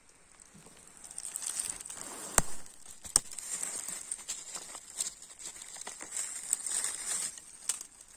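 Dry leaf litter crackling and rustling as a hand pushes through the leaves around a porcino mushroom, with irregular crackles and a few sharp clicks, the loudest about two and a half seconds in.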